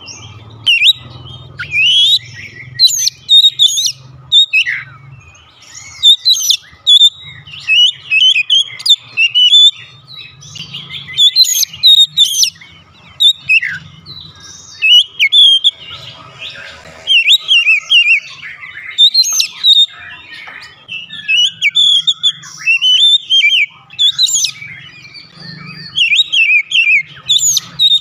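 Oriental magpie-robin singing: a rapid, varied run of high whistles and chirps that slide up and down, delivered in short phrases with brief gaps.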